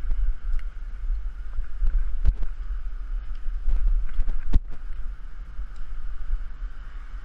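Wind rumbling on the microphone of a GoPro carried on a moving bicycle, with a few sharp knocks as the bike jolts over the pavement, the loudest about two and four and a half seconds in.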